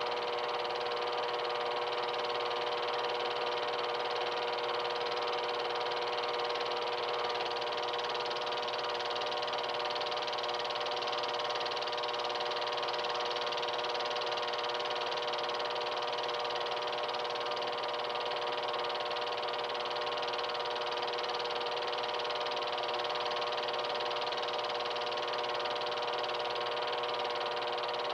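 Movie film projector running: a steady motor hum and mechanical chatter with a few fixed tones, unchanging throughout.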